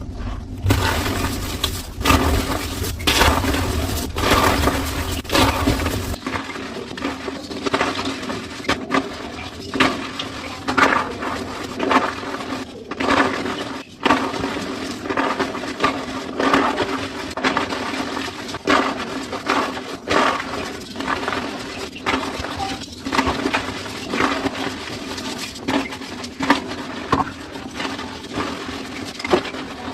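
Slabs of homemade gym chalk being crushed: a continuous run of squeaky crunches and crackles as the pressed blocks break and crumble.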